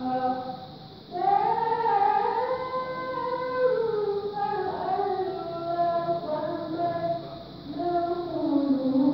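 A woman's solo melodic Quran recitation (qiro'ah) in long, ornamented held phrases. After a short breath pause about a second in, she starts a high held line that slowly winds downward, then begins a new phrase near the end.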